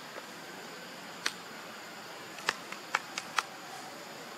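A few short sharp clicks over a steady background hiss: one on its own, then five in quick succession about two and a half to three and a half seconds in.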